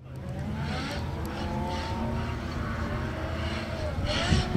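Nissan S13 drift car's engine held at high revs, its pitch rising and falling, with bursts of tyre noise as it slides; the loudest burst comes about four seconds in.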